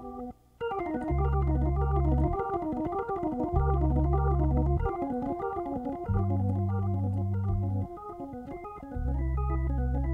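Hammond B3 organ playing jazz: fast right-hand runs going up and down over held bass notes, after a brief break about half a second in.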